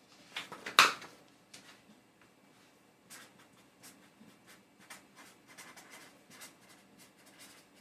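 Felt-tip marker writing on paper: a run of faint, short scratchy strokes as the letters are drawn. A single louder rustle or knock sounds just under a second in as the sheet is handled.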